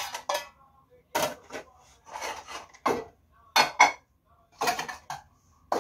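Dishes clinking and clattering as they are handled and stacked by hand: about eight short knocks, some ringing briefly, with short gaps between them.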